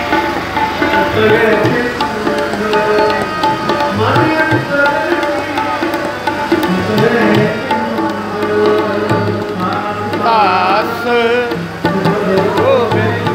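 Sikh kirtan music: a harmonium and tabla playing while a man sings a hymn.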